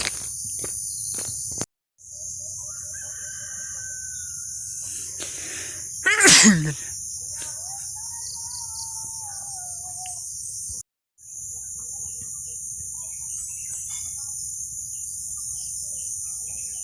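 Steady high-pitched chorus of insects, with a short, loud cry about six seconds in that falls steeply in pitch, and a couple of fainter drawn-out animal calls. The sound drops out completely twice, briefly.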